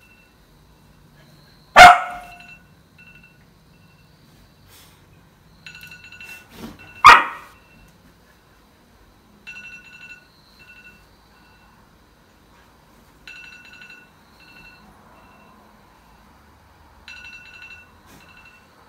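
Samoyed barking twice, two sharp, loud barks about five seconds apart. Between and after them come fainter groups of short high beeps that repeat about every four seconds.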